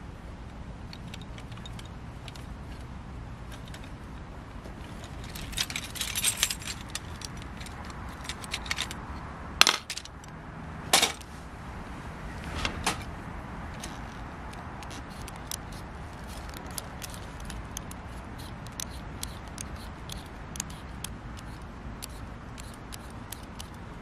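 Cooking gear and utensils being handled: a jangling rattle about five seconds in, two sharp knocks a little over a second apart near the middle, a lighter clink after them, then faint scattered ticks.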